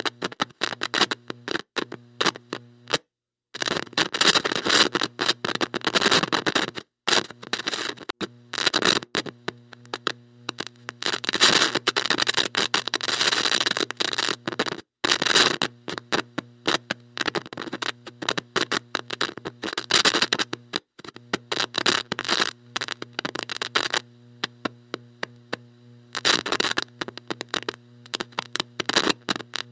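Heavy electrical static from a bad electronic connection: harsh crackling bursts that cut in and out irregularly, with a steady low hum underneath.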